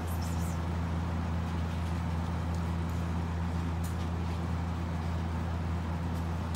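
A steady low mechanical hum that does not change, with a few faint clicks over it.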